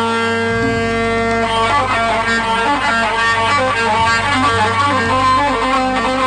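Live instrumental music with no singing: a plucked, guitar-like lead over held notes and a low bass line that changes note every second or so.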